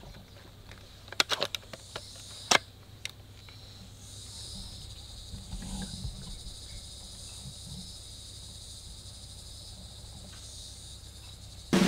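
Woodland insects buzzing in high steady bands, with a few sharp clicks or snaps a second or two in. A loud drum roll begins right at the end.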